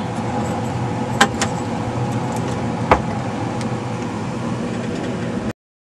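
A few light clicks and knocks as the amplifier's 6L6GC vacuum tubes are handled on the chassis, over a steady hum and hiss. The sound cuts off suddenly near the end.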